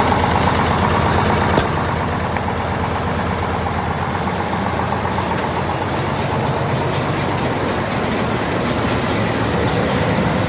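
Tractor engine running steadily with an even low pulse, with one sharp click about a second and a half in.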